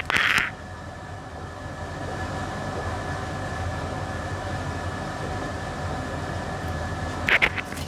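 Steady blowing hum of a fan on an electronics repair bench, with a thin steady whine running through it. It gets a little louder about two seconds in, and there is a short hiss at the start and another near the end.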